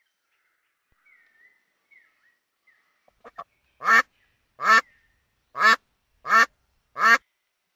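A duck quacking: a few faint calls, then two short soft quacks, then five loud quacks about three-quarters of a second apart.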